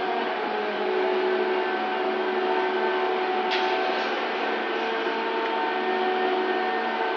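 Steady drone of cargo-crane machinery working a load of steel rails out of a ship's hold, with several steady hum tones over a noisy rumble. A single sharp click sounds about three and a half seconds in.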